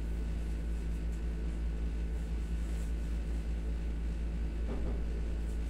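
Steady low hum and hiss of a room air conditioner running.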